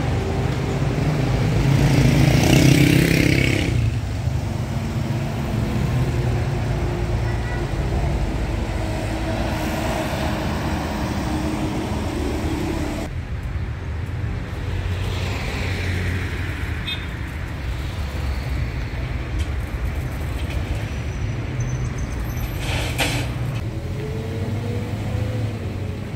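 A motor vehicle's engine running steadily as it drives, a low continuous rumble with road noise.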